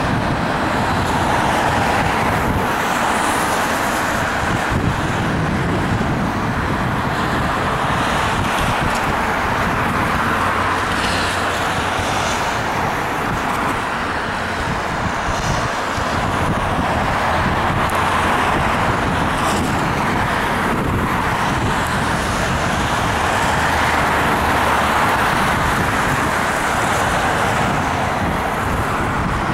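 Road traffic on a wet road: a steady tyre hiss that swells and fades as cars drive past one after another.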